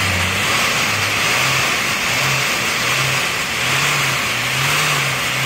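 A minivan's engine running at the tailpipe, its exhaust rushing steadily past the microphone. The revs lift a little partway through and settle back, as it is run for an exhaust smoke check.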